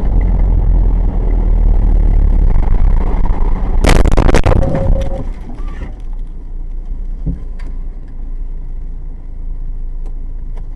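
A car's steady engine and road rumble, then about four seconds in a sudden loud car crash: a cluster of impacts lasting about a second and a half. After the crash the rumble is much quieter.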